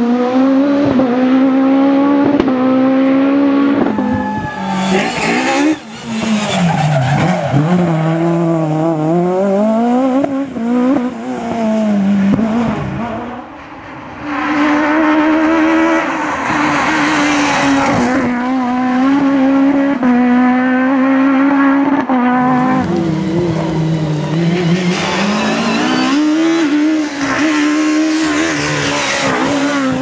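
Peugeot 306 Maxi rally cars' high-revving four-cylinder engines driven flat out, several cars in turn. The pitch climbs through the gears and drops sharply on lift-offs and downshifts for corners.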